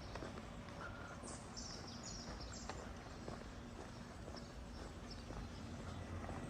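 Footsteps walking on beach sand over a steady low wash of sea and wind, with a few short high chirps about one to three seconds in.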